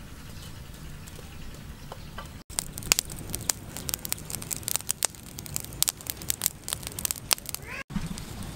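Glowing charcoal fire crackling, with sharp pops and ticks coming several times a second, starting suddenly about two and a half seconds in and cutting off near the end. Before that there is only a low steady rumble.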